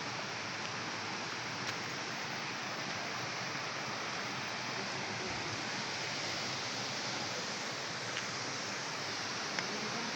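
Waterfall pouring: a steady, even rush of falling water, with a few faint clicks.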